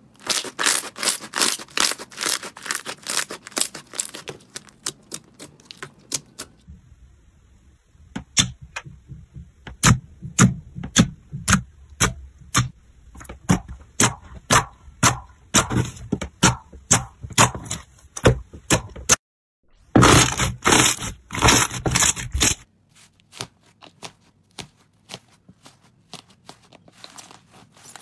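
Crunchy slime being squeezed and poked by hand: a fast run of crackles and sharp clicks that changes abruptly a few times as one clip gives way to the next.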